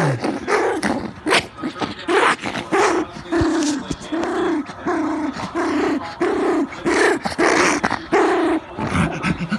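Small terrier puppy growling and yapping while guarding a stuffed toy that a hand is pulling at. Sharp yips come in the first few seconds, then a run of short rising-and-falling growl-barks, about two a second.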